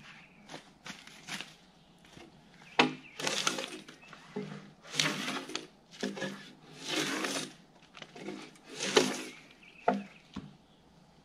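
Gränsfors Bruks drawknife pulled along a log, stripping off the bark: a series of rasping strokes, each about half a second long and a second or two apart, the first beginning with a sharp knock.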